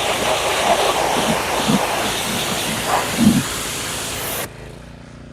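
Pressure washer spraying a mud-caked RZR side-by-side, a loud steady hiss of water on the body with uneven low thuds, which cuts off suddenly about four and a half seconds in as the spray stops, leaving a quieter low hum.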